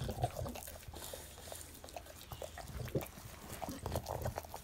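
English bulldog licking and nuzzling a person's neck at close range: irregular wet smacks and clicks over snuffling breaths.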